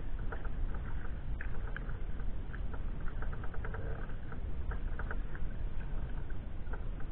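Sea kayak being paddled: water patters and drips off the paddle blades in short, irregular ticks and splashes, over a steady low rumble.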